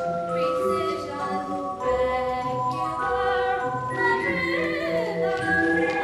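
Music from a stage musical, with long held notes over a recurring bass line.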